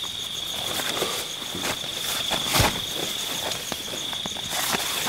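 Night insects, crickets or similar, trilling in a steady high chorus with a faint pulsing note above it. Scattered rustles and clicks, with one sharper knock about halfway.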